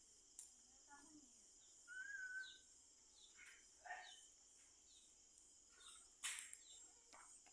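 Near silence of a rural night: a faint steady high insect hum with a few faint, short chirps, and one sharp click about six seconds in.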